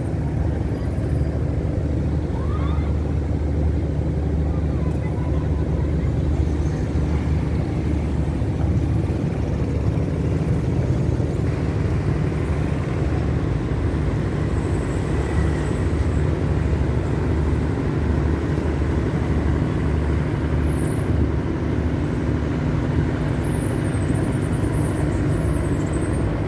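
Steady low engine rumble of heavy traffic and motors, holding an even level throughout.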